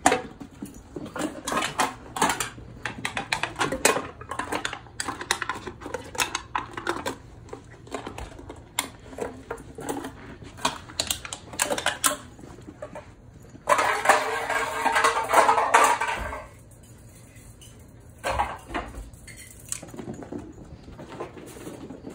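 Empty aluminum soda can being knocked and pushed around by a puppy, a quick run of light metallic clattering knocks. About two-thirds of the way through there are a couple of seconds of continuous rattling and scraping, then only a few scattered knocks.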